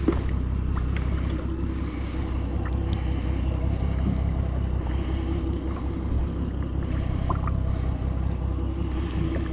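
A boat engine idling with a steady low hum, under wind and water noise.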